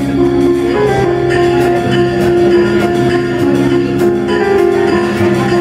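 Live jazz quartet playing a jam: electric guitar, electric bass, piano and drum kit, with steady cymbal strokes over sustained chords.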